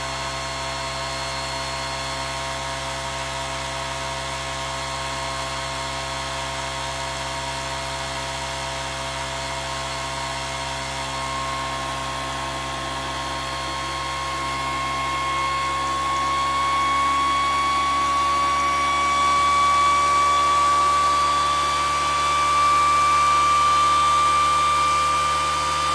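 Homemade pulse motor running fast with a steady whine, its pitch rising slowly and growing louder over the second half as the rotor speeds up.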